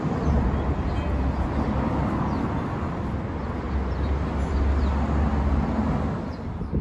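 Outdoor background noise: a steady low rumble with hiss.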